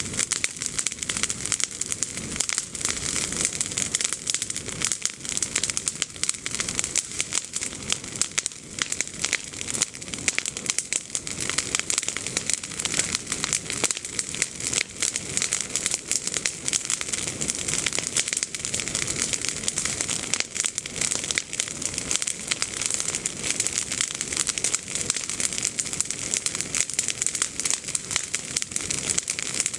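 Freshly pruned green olive branches burning in a bonfire, the leaves crackling and popping in a dense, unbroken stream of small snaps.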